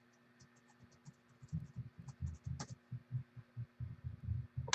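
Typing on a computer keyboard: a quick, uneven run of key clicks that starts about a second in, with a sharper click near the middle and another at the end, over a faint steady hum.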